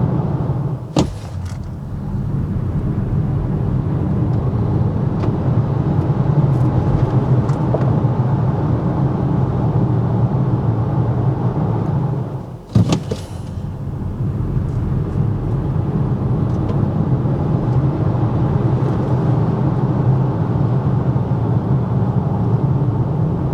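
Steady road and tyre noise inside the cabin of a Volvo C40, an electric car, driving at a constant speed, with no engine sound. It is broken twice by abrupt cuts, about a second in and about halfway through.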